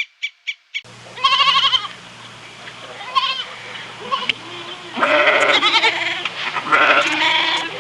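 Goats bleating: several quavering bleats, some long and some short. They are preceded by a short run of rapid pulsed calls, about four a second, that cuts off about a second in.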